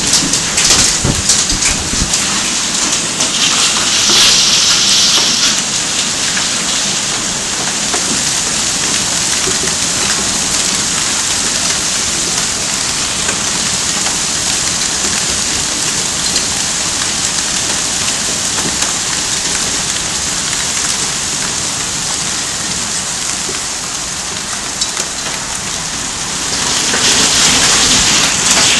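Hailstorm: hail and heavy rain pelting down in a dense, steady hiss, heavier about four seconds in and again near the end.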